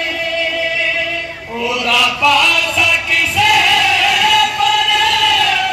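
Men chanting a noha, a Muharram mourning lament, through a microphone and loudspeaker system, in long drawn-out sung lines with a short break about a second and a half in.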